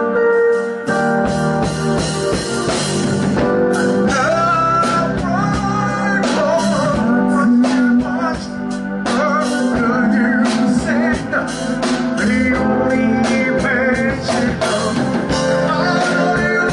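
Live band playing blues-rock music, with a steady drum beat under wavering melodic lines.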